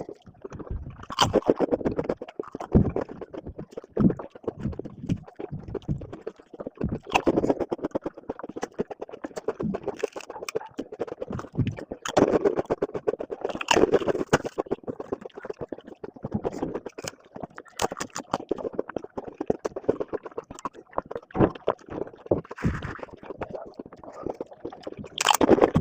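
Close-miked eating sounds of chole chawal, chickpea curry with rice: wet chewing, lip smacks and mouth clicks in a dense, irregular run, with louder clusters every few seconds.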